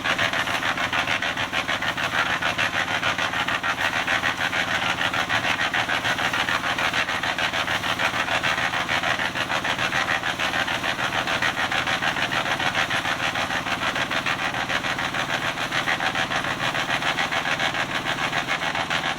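A small engine running steadily at constant speed, with a fast even pulsing.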